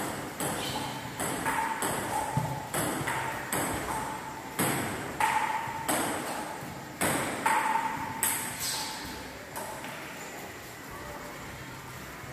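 Table tennis ball struck back and forth in a rally: quick sharp clicks of ball on paddle and table, about two a second, each with a short ringing ping, echoing in a tiled hall. The strokes stop after about ten seconds.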